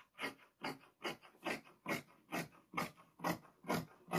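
Large dressmaking scissors cutting through black abaya fabric on a table, one crunching snip after another at a steady pace of about two and a half cuts a second.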